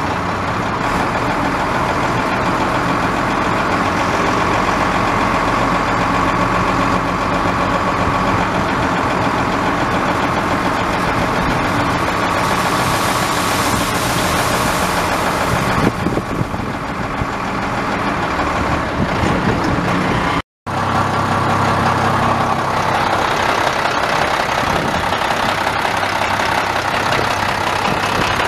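1997 International 4900 dump truck's DT466 7.6-litre inline-six turbo diesel idling steadily. A hiss rides over it from about twelve to sixteen seconds in, and the sound cuts out for a moment about twenty seconds in.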